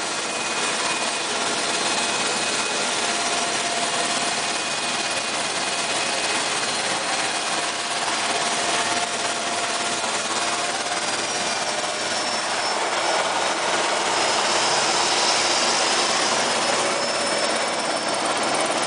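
Sikorsky S-61N helicopter heard from inside the cockpit: steady turbine whine over rotor and engine noise while it comes in to land on a helideck. A high-pitched whine grows stronger about two-thirds of the way in.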